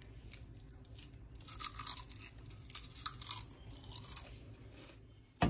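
Crisp beetroot chips crunching and crackling in irregular bursts of small snaps. A single loud thump just before the end, after which the sound cuts off.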